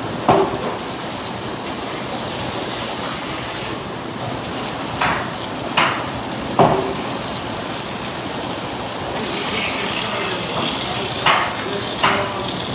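Hand-held spray gun on a hose, spraying a steady hiss of water, with several short sharp knocks at uneven intervals.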